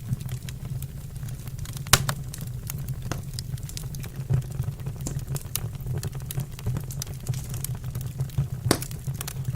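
Wood fire crackling in a fireplace: frequent small pops over a steady low rumble, with two sharp louder pops, one about two seconds in and one near the end.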